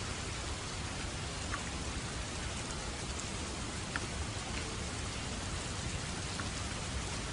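Steady rain falling, an even hiss with a few separate drops ticking now and then.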